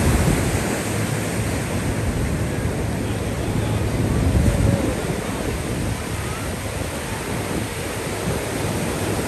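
Ocean surf breaking and washing up the shore in a steady rush, with wind rumbling on the microphone.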